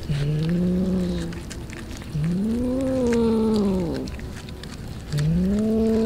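A cat giving three long, low yowls, each rising and then falling in pitch, with short pauses between them.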